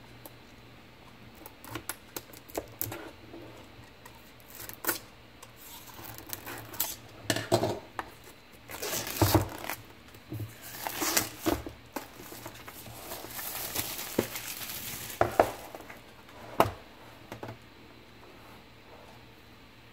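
Clear plastic shrink wrap being torn and peeled off a metal pencil tin: irregular crinkling and crackling with a few sharp clicks, going quiet a few seconds before the end.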